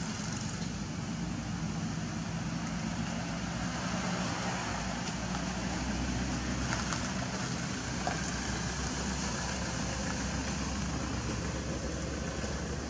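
Steady outdoor background noise: a low engine hum from a motor running, under a constant hiss.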